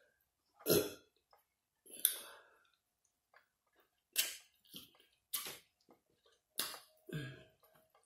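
Close-up eating sounds from a seafood boil eaten by hand: short wet smacks, sucks and crunches of shell and meat, about eight separate sounds spaced a second or so apart.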